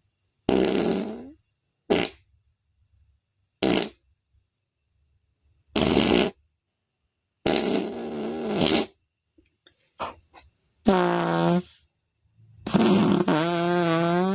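A string of imitation fart sounds made by people, about eight in a row with short gaps: some are brief raspy blasts, others longer. The last two are buzzy and pitched, with the pitch sliding at the end.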